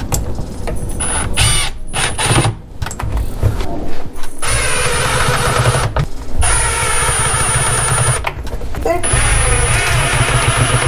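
Cordless drill-driver running in several bursts of one to two seconds, driving small screws up through the dishwasher's plastic vapor barrier into the underside of the countertop.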